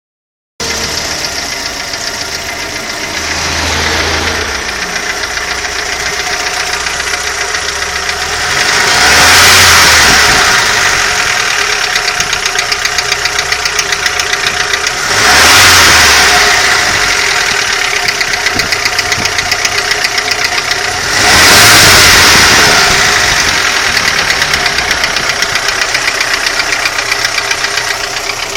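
Audi 80 engine running with a rapid, steady knock, the fault the owner is recording. It is revved up briefly three times, about six seconds apart, after a smaller rise early on, and the knock carries on through each rev.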